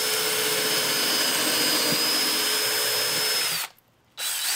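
A DeWalt cordless drill spins a stepped pocket-hole bit through a board held in a Kreg K5 pocket-hole jig. The motor runs at a steady speed with a steady whine, stops suddenly about three and a half seconds in, and then gives a short second burst near the end.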